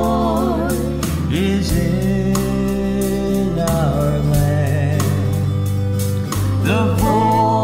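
Christian worship song: held, gliding sung notes with no clear words over sustained instrumental backing and a steady bass line.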